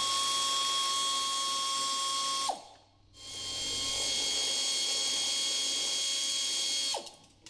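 Cordless power driver running twice at a steady speed, spinning out the bolts and nut that hold the golf cart's rear sweater basket assembly. Each run lasts a few seconds and winds down in pitch as the trigger is released.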